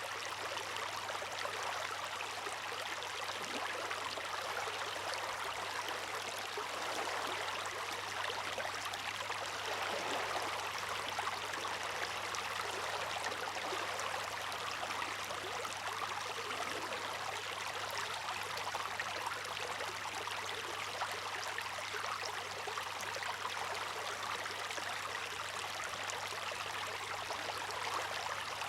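Seawater at the shore rushing and splashing steadily, without distinct swells of breaking waves. A faint low hum runs beneath it.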